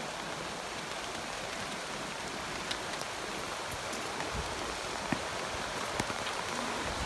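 Steady rushing of water, with a handful of faint clicks scattered through.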